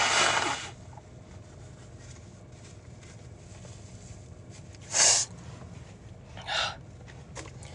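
A woman sneezing and blowing her nose in an allergy-driven sneezing fit. There is a long noisy blast at the start, a short sharp one about five seconds in, and a smaller one about a second and a half after that.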